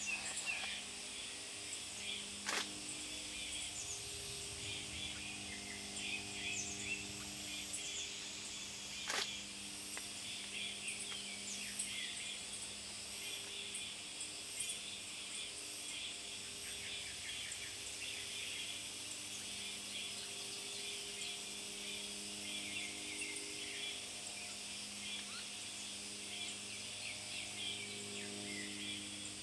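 Woodland ambience of many short bird chirps and calls scattered throughout, over a steady high-pitched drone and a low steady hum. Two sharp clicks, one a couple of seconds in and one about nine seconds in.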